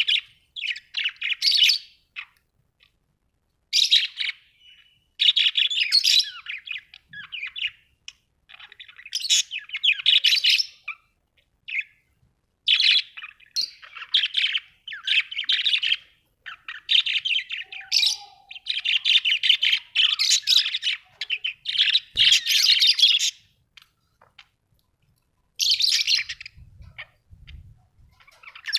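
Budgerigars chattering and warbling in bouts a second or a few seconds long, separated by short pauses.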